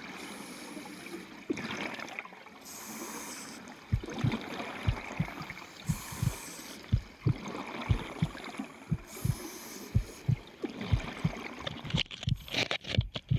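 Underwater sound picked up through an action camera's waterproof housing on a scuba dive: a steady wash of water noise, with a scuba diver's exhaled regulator bubbles hissing in bursts about every three seconds. From about four seconds in there are many short, dull thumps against the housing.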